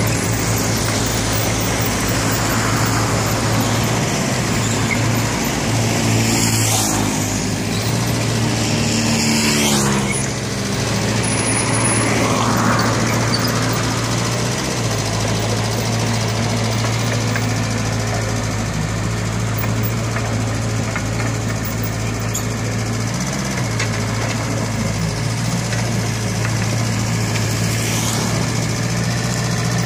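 Hanix H45A mini excavator's diesel engine running steadily as it works the arm and bucket in wet soil. The engine note bends up and down briefly between about six and ten seconds in.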